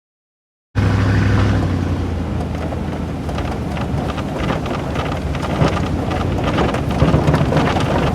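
Steady rain falling, dense with fine drop ticks, over a low steady hum; it starts abruptly after a moment of silence.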